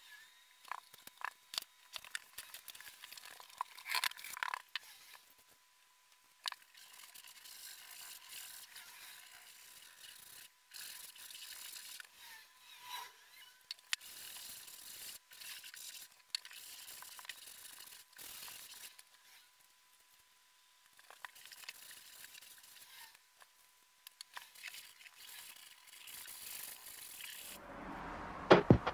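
Faint scraping and rubbing with scattered sharp clicks as hands work against a closet wall, over a light hiss and a thin steady high tone.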